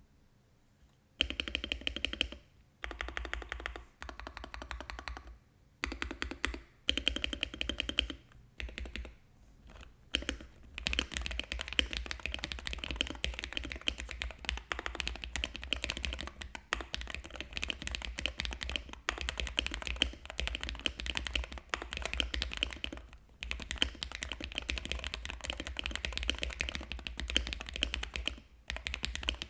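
Aula Win60HE magnetic-switch keyboard in a CNC aluminum case, fitted with Gateron Magnetic Jade Pro switches, being typed on. A few short bursts of keystrokes in the first ten seconds give way to fast, continuous typing with brief pauses.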